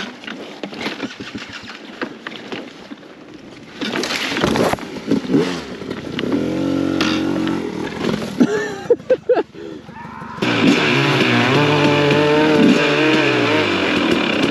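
KTM enduro motorcycle engine running at low revs on a sandy forest trail, with pine branches brushing against the bike about four seconds in. Near ten seconds the sound cuts abruptly to an off-road motorcycle engine revving up and down.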